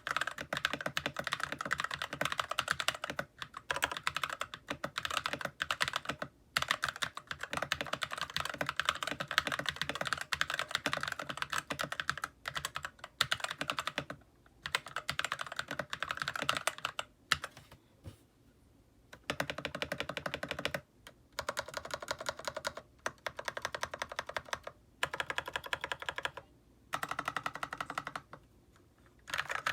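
Typing on an E-YOOSO K620 mechanical keyboard fitted with stock Akko CS Matcha Green switches, factory-lubed stock stabilizers and cherry-style keycaps: rapid runs of keystrokes broken by several brief pauses, the longest a little past the middle.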